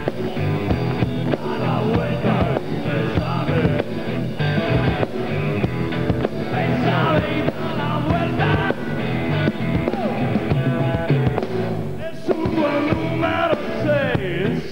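Rock band playing: electric guitar, bass guitar and drum kit, with a man singing lead.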